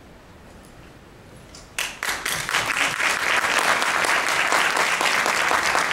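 An audience breaks into applause about two seconds in, dense many-handed clapping that carries on steadily after a quiet start.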